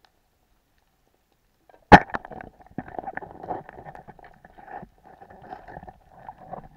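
A speargun fired underwater: one sharp crack about two seconds in, followed by irregular scraping and rattling.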